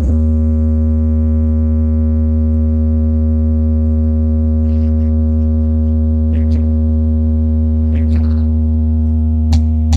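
A loud, steady, deep synthesized bass tone held without change, with a few steady higher overtones above it. A few faint ticks come in over the last few seconds as the beat returns.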